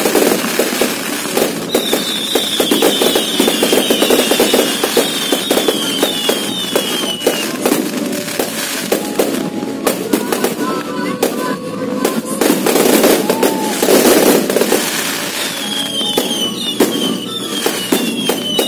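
A close fireworks barrage: rapid bangs and dense crackling from the aerial shells, with runs of short falling whistles in the first half and again near the end.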